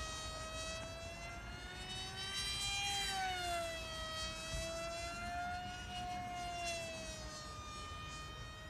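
Multiplex FunJet RC plane's electric motor and propeller whining as it flies past, the pitch slowly sliding down and up again a few times.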